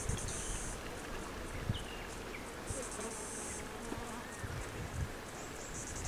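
An insect buzzing in short, high, finely pulsed bursts, each just under a second long, about every three seconds. Underneath runs a low steady rumble with a few soft thumps.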